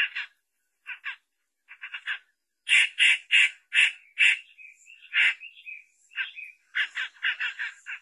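Laughingthrush (poksay) calling: harsh, rasping notes in quick runs, loudest in a string of about five notes about three seconds in, with another fast run near the end.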